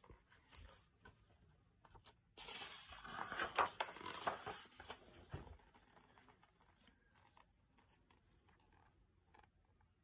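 Pages of a picture book being handled and turned: paper rustling and light scraping, heaviest from about two and a half to five seconds in, with a few faint ticks after.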